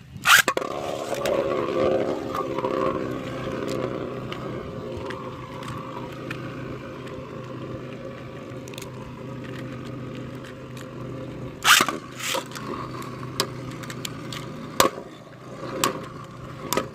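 Beyblade spinning tops whirring and scraping around a plastic battle stadium, with a sharp clack as they land at the start and scattered clacks as they collide, the loudest about twelve seconds in and again near fifteen seconds.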